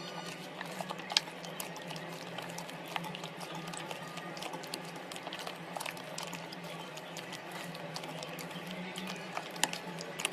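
Slime being squeezed and worked by hand, giving a dense, irregular run of small wet pops and crackles over a steady low hum.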